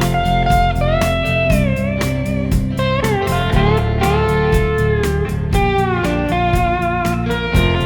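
Background rock music: an instrumental guitar passage, a lead electric guitar playing bending, sustained notes over a steady drum beat.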